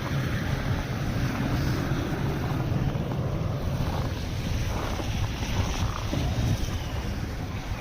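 Storm wind blowing and buffeting the microphone, a steady low rumble with no breaks.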